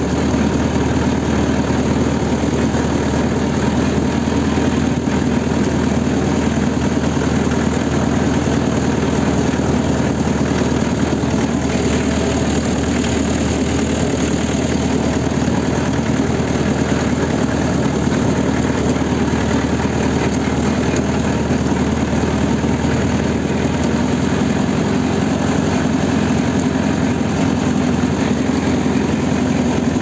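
Leyland tractor's diesel engine running steadily under way, heard from the driver's seat close to the engine, with no change in speed or load.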